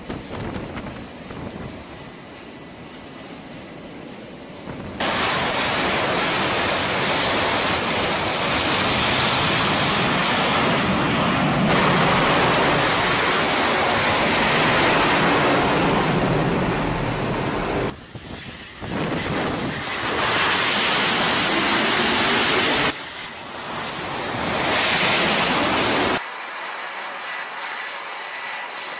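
F/A-18 Super Hornet jet engines running at high power: a loud, dense jet noise that jumps abruptly in level about 5, 12, 18, 23 and 26 seconds in, as shots change. The quieter stretches at the start and end carry a steady high turbine whine.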